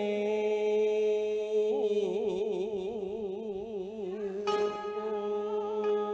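Vietnamese cải lương instrumental accompaniment: plucked strings playing slow held notes with a wide, wavering vibrato. The sound grows fuller and brighter about four and a half seconds in.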